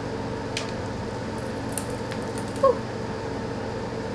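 Faint crackling of dry fibre packing around a small plant pot as it is handled, over a steady room hum. A short squeak comes about two and a half seconds in.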